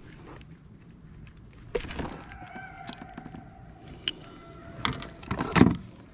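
Scattered clicks and light rattles of a plastic fish lip-gripper and its cord lanyard being handled, with a heavier knock a little before the end.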